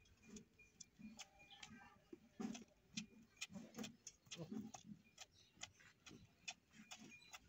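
Faint, irregular wet clicks and smacks of a cow's tongue licking a young goat's coat, several a second.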